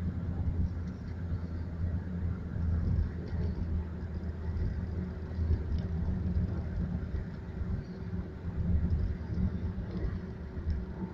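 A puppy snoring: a low, steady rumble that swells and eases with its breaths every few seconds.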